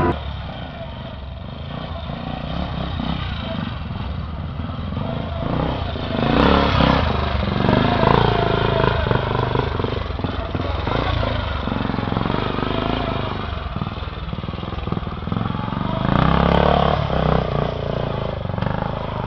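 Classic trials motorcycle engine running and being revved in bursts, loudest about six to eight seconds in and again about sixteen seconds in.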